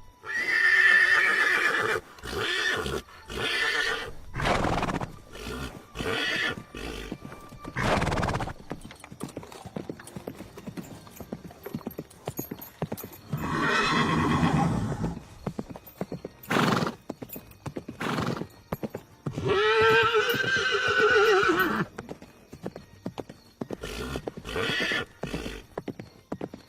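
Horses whinnying, with hooves clip-clopping between the calls. The longest whinnies come right at the start and about twenty seconds in.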